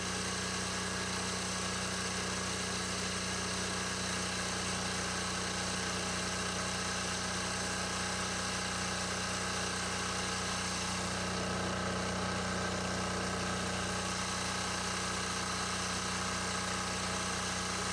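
Micro Thaw microwave thawing machine running steadily over a frozen valve box cap: an even mechanical hum with several steady tones, no change in pitch or level.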